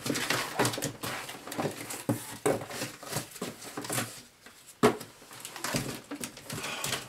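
Rummaging in a cardboard shipping box: cardboard flaps and packing material rustling and scraping in irregular bursts, with a sharp knock a little under five seconds in.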